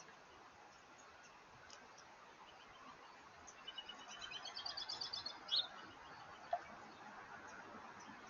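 Songbirds calling faintly: scattered high chirps, a quick twittering run of rapid high notes about halfway through, then a single sharp call.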